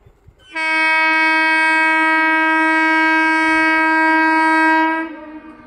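Indian Railways train horn sounding one long, steady blast of about four and a half seconds, then cutting off.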